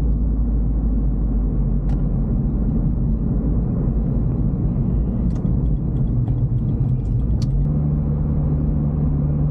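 Toyota GT86's 2.0-litre flat-four engine and road noise, heard from inside the cabin while driving: a steady low rumble. The engine note steps up to a slightly higher steady pitch about three-quarters of the way through, with a few faint clicks just before.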